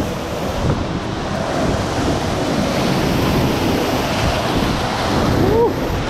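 Steady, loud rush of water with wind buffeting the microphone. Near the end comes a short call that rises and then falls in pitch.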